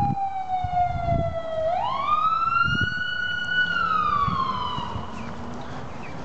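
Emergency vehicle siren in a slow wail: the pitch falls, rises again about two seconds in, holds, then falls away and fades near the end.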